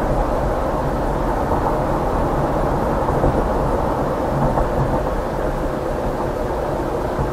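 Steady low road rumble of a car driving: tyre and engine noise with no distinct events.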